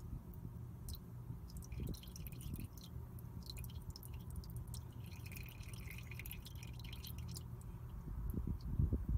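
Engine oil dribbling in a thin stream from the oil pan drain hole into a drain bucket of used oil: a patter of small drips and splashes on the oil's surface, busiest through the middle, over a steady low background rumble.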